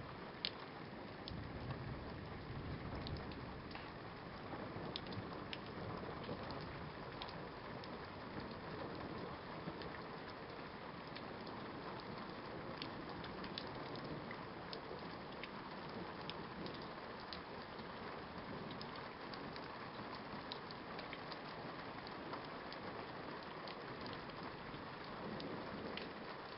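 Steady rain falling, with many sharp separate ticks of drops striking a hard surface. A low rumble, likely distant thunder, swells briefly about two seconds in.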